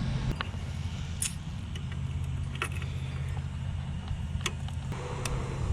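A few scattered light metallic clicks and jingles over a steady low hum.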